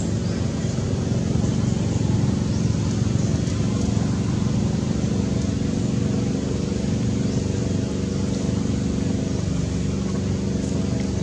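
Steady low engine hum, as of a motor vehicle running at idle, continuous and unchanging, with faint high ticks above it.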